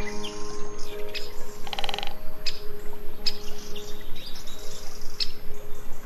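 Small birds chirping and calling in short high notes over soft background music of held low notes, with a brief buzzy rattle about two seconds in.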